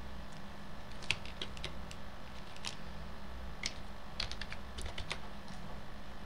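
Typing on a computer keyboard: a dozen or so keystrokes in short, irregular runs over a low, steady hum.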